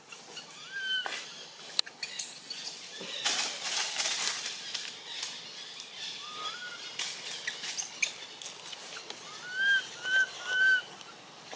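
Infant long-tailed macaque giving short, high, rising-and-falling coo calls: a single one early, another midway, then three in quick succession near the end. Rustling and scraping of leaves and branches in the middle.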